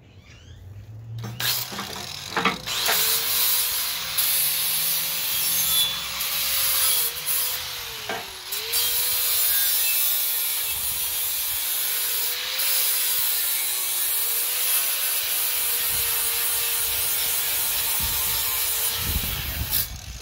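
Electric angle grinder with an abrasive disc grinding rust off steel. Its motor whine holds steady and dips briefly when the disc is pressed into the work. It starts about a second in and shuts off near the end, winding down.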